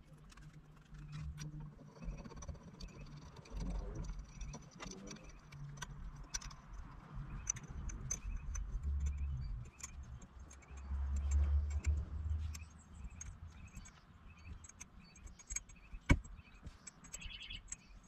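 Small metallic clicks and clinks of a hand tool working screws as a steering-wheel quick-release base is bolted onto the hub, with low handling bumps and one sharper click near the end.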